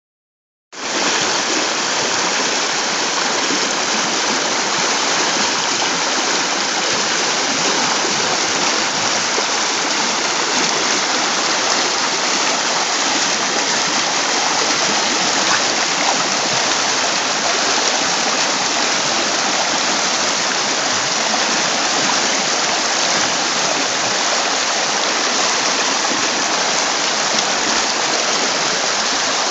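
River water rushing over a shallow, rocky stretch of rapids: a steady, unbroken rush that starts abruptly under a second in.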